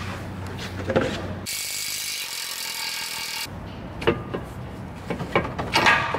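Clicks and knocks of hand-tool work on a car's front suspension arm, with a steady hiss lasting about two seconds in the middle.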